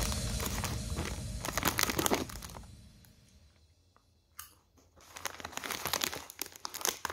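Crinkly metallic foil snack bag being handled and crumpled, in bursts of crackling rustle with a quieter lull about halfway through.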